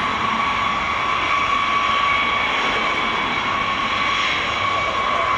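Boeing B-52H Stratofortress's eight TF33 turbofan engines running at low taxi power on the ground: a steady high whine over an even jet rush.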